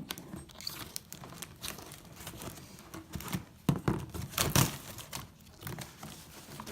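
Flimsy cardboard shipping box being cut and torn open by hand: irregular crinkling, scraping and tearing, loudest a little past the middle.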